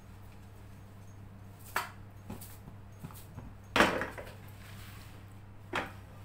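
Nonstick frying pan knocking against the gas stove grate, three sharp knocks with the loudest about four seconds in as the pan is set down, over a steady low hum.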